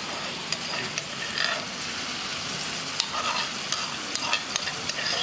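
Ground pork stir-frying in hot oil in a pan, sizzling steadily, with scattered clicks and scrapes of a utensil stirring it against the pan.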